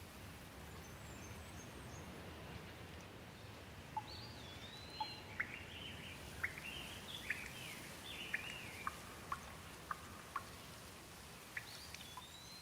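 Soft steady rain hiss, with a bird singing a run of short whistled, gliding notes from about four seconds in, and scattered short ticks through the second half.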